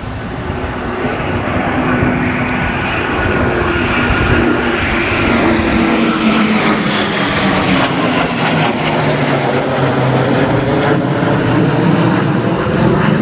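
Low-flying aircraft passing overhead during a flypast, building in loudness over the first couple of seconds and staying loud, the engine note dropping in pitch about halfway through as it goes past.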